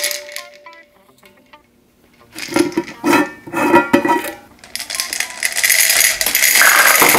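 A few scraping, rattling bursts as the metal screw lid is worked off a glass jar of gumballs. Then, from about five seconds in, a steady loud clatter of gumballs pouring from the jar into the glass globe of a gumball machine.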